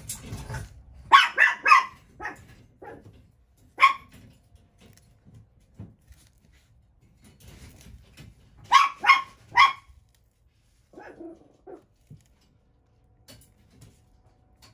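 A dog barking: a quick run of three barks about a second in, a few single barks after, and another run of three around the middle, with weaker sounds near the end.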